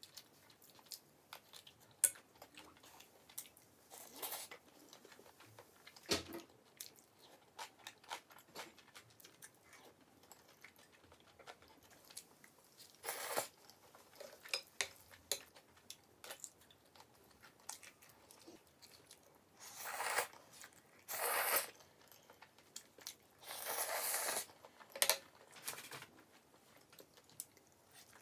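Eating sounds: bites and chewing of spicy Buldak-ghetti noodles and cheese kielbasa sausage. Scattered small clicks are broken by a few louder, noisier bites of up to about a second, the loudest clustered in the last third.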